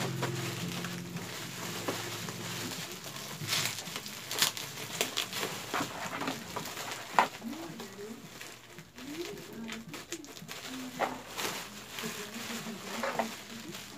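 Plastic packaging crinkling, with sharp clicks of handling as a ring light is unwrapped. Background music stops about three seconds in, and a bird cooing low comes through in the second half.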